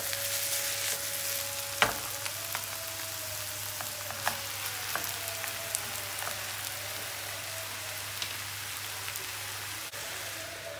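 Shredded cabbage and onions frying in oil in a pan: a steady high sizzle as they are cooked down to caramelize, with a few light knocks of a wooden spoon stirring.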